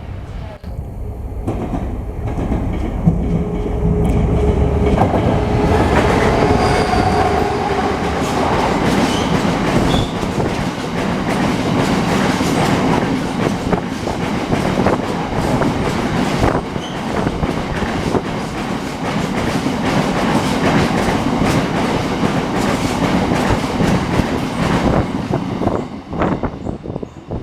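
Class 66 diesel-electric freight locomotive passing at speed. Its engine drones low with a steady whine in the first several seconds, then a long rake of wagons clatters over the rail joints with clickety-clack knocks, dying away near the end.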